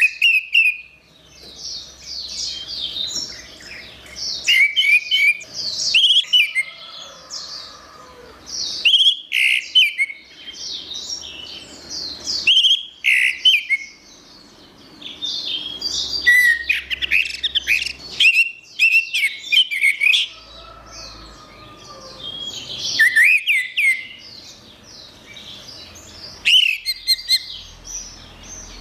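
Orange-headed thrush (anis merah) singing a fast, varied warbling song. It comes in bursts of a few seconds with short pauses between phrases.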